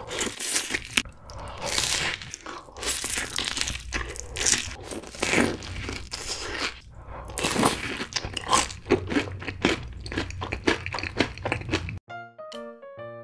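Close-miked crunchy bites and chewing of sauce-glazed fried chicken and a Cheetos-crusted corn dog, a quick run of crackly crunches. Near the end it cuts off suddenly to light piano music.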